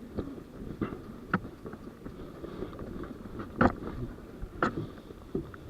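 A low steady hiss with about five faint knocks and rustles scattered irregularly through it: the movement noise of an airsoft player on the move with his gear.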